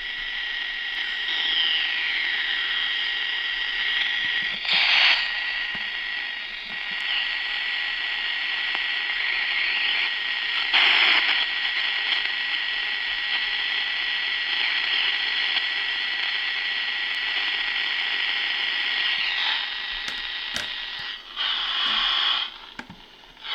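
AM radio static: a steady hiss with a constant high whistle, brought close to a cell phone to pick up its radio interference. Short louder bursts of noise break in about five and eleven seconds in, and the hiss dips before one more brief burst near the end.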